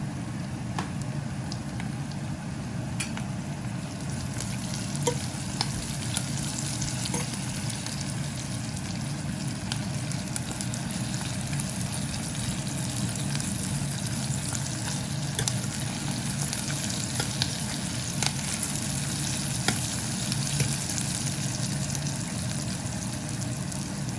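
Sliced onion, green chilli, garlic and curry leaves frying in hot oil in a pan, a steady sizzle as the onion softens, with scattered sharp clicks of a spoon stirring against the pan.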